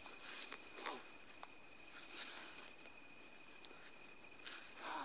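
Night insect chorus: crickets trilling steadily in one high continuous tone. A few soft rustles of grass and vegetation, the largest near the end.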